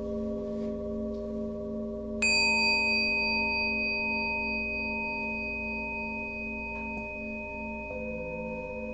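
Ambient background music of steady sustained drone tones with a slow pulsing wobble. About two seconds in, a high bell-like tone is struck and rings on, slowly fading.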